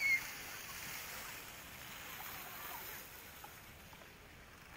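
Fountain jets splashing, fading away after about three seconds. A brief high squeal sounds right at the start.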